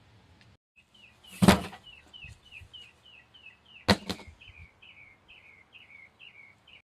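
A bird repeating a short falling chirp about twice a second, with two sharp knocks, one about a second and a half in and one about four seconds in.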